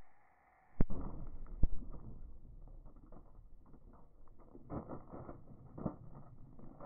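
Two shots from a .357 Magnum Taurus revolver, a little under a second apart, followed by faint scattered knocks.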